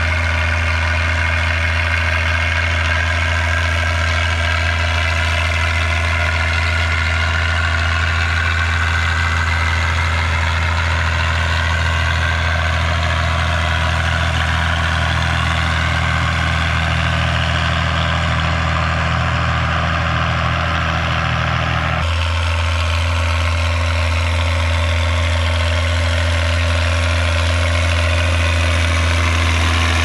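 Six-cylinder Martin Diesel Z 8602.12 turbo engine of an Ursus 1634 tractor, with a straight-through stainless-steel exhaust pipe, running steadily under load while pulling a disc harrow. Its tone changes abruptly about two-thirds of the way through.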